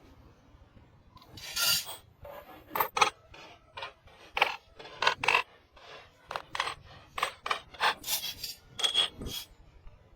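Repeated rasping, scraping strokes, like a file or abrasive worked by hand across a surface, irregular at about two strokes a second, with a longer stroke near the start.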